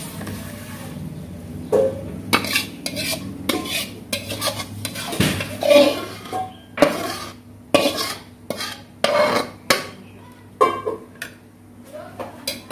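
Metal spatula and spoon scraping and knocking against a metal wok as cooked chicken feet in chilli sauce are scraped out onto a plate. The scrapes and knocks come irregularly, starting about two seconds in.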